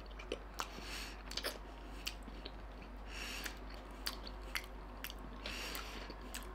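A person chewing a mouthful of chicken tortilla wrap with the mouth close to the microphone: quiet, irregular mouth clicks scattered throughout, with a few short soft hisses.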